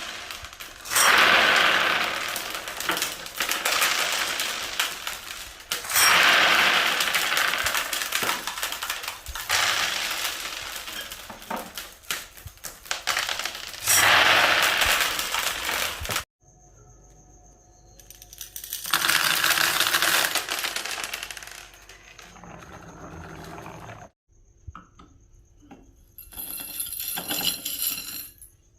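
Marbles rolling and clattering down Haba wooden slope tracks, a dense rattle of clicks and knocks in several separate runs, two of them cut off abruptly. Near the end a brighter, ringing jingle sounds for a couple of seconds.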